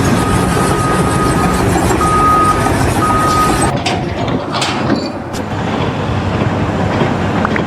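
Heavy vehicle or machinery engine running with an electronic warning alarm beeping in uneven pulses. Then the sound changes abruptly to lower engine noise with a few knocks.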